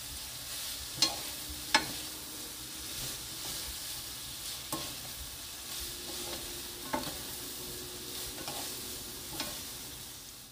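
Sauced dried filefish strips sizzling in a frying pan as they are stirred and tossed with a spatula. The spatula knocks sharply against the pan now and then, loudest about a second in and again just before two seconds.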